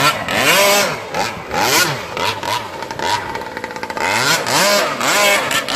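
Grass-trimmer engine on a radio-controlled longtail boat revving up and down over and over. Its pitch rises and falls in repeated swoops.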